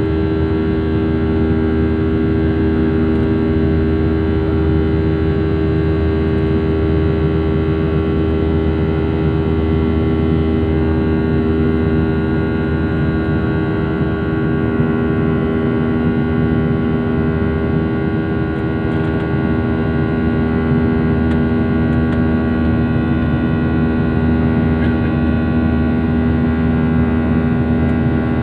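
Aircraft engines running with a steady, unchanging drone: a loud hum of several held pitches over a low rumble, with no rise or fall.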